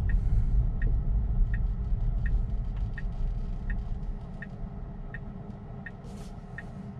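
Tesla turn signal ticking steadily, about one tick every 0.7 s, for the coming right turn. Under it is low road rumble in the cabin that fades about four seconds in as the car slows to a stop.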